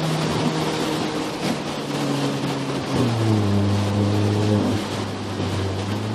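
Volkswagen Polo GT TSI's turbocharged petrol engine and exhaust note heard from inside the cabin while driving, over road noise. The engine note shifts in pitch about three seconds in.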